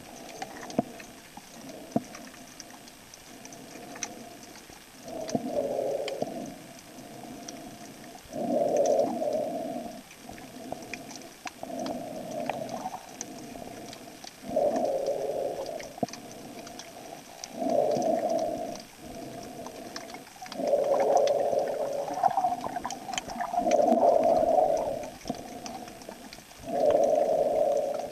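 A swimmer's breathing heard underwater: bursts of bubbling about every three seconds, each lasting a second or so, over a faint crackle of scattered clicks.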